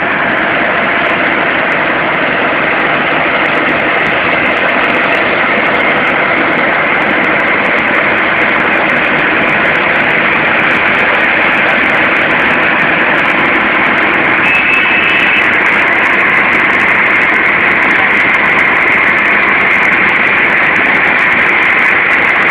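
Road-paving machinery engines running steadily under a dense, continuous hiss, with a brief high tone about two-thirds of the way through.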